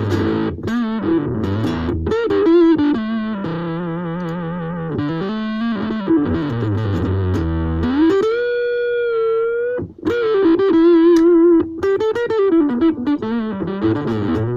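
Ibanez AXS42 electric guitar, fitted with a vintage capacitor in its tone circuit, played through an amp with the tone knob rolled down. It plays lead lines with string bends and vibrato, including one long held note about eight seconds in.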